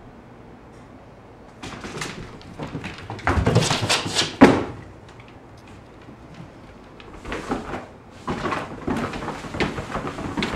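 A cat's paws thumping and scrabbling on a hardwood floor as it runs in bursts, with one sharp knock about four and a half seconds in, a pause, then more scuffling near the end.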